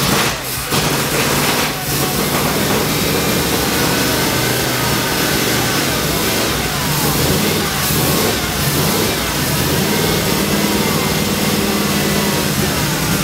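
Ford FE V8 of a 1973 Ford F100 running, its speed rising and falling a little as the throttle is worked by hand at the carburetor during tuning.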